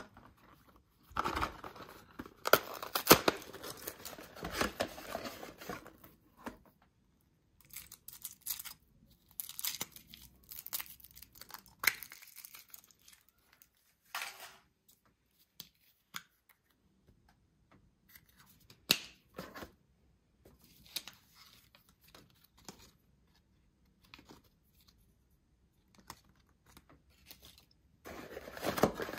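Kinder Surprise egg wrappers and packaging being torn and crinkled open by hand. The sound comes in bursts of rustling and tearing, the longest in the first half, with a few sharp clicks in between.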